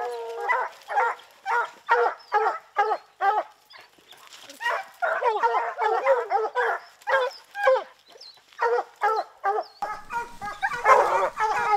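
Bear hounds barking in a rapid series, about two or three barks a second, several dogs overlapping and growing louder and denser near the end.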